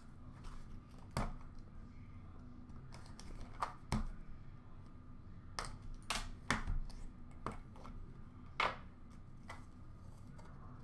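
Hands opening and handling a trading-card box: scattered sharp clicks and taps of cardboard and packaging, about a dozen spread irregularly, as the lid is flipped open and the inner card box is lifted out and worked open.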